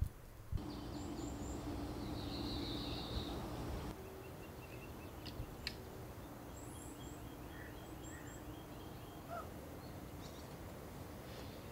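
Small songbirds chirping in short trills and twitters, faint, over steady outdoor background noise with a low hum.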